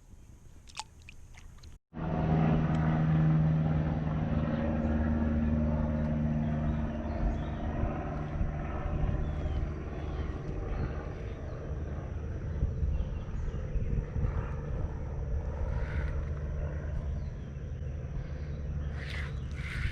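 A low, steady engine drone with several pitch lines. It starts abruptly about two seconds in, is loudest soon after, and slowly fades.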